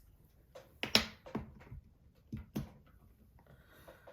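Several irregular clicks and light taps of small hard parts being handled and set down, the strongest about a second in.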